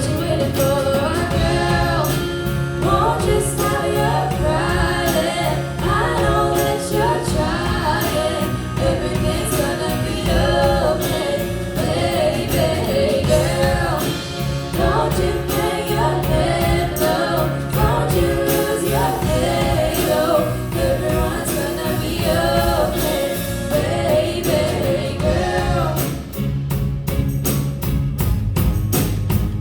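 A song with singing over instrumental accompaniment. Near the end the voice stops and the instruments carry on with a quick, even beat.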